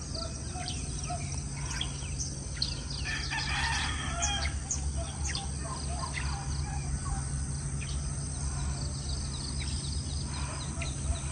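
A rooster crowing about three seconds in, over small birds chirping and a steady low rumble.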